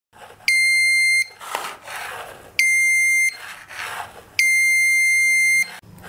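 Small electronic buzzer sounds three steady high-pitched beeps, the last one longer, each time a magnet is brought up to a magnetic reed-switch sensor and closes its reed contacts. Softer handling and rustling noise comes between the beeps.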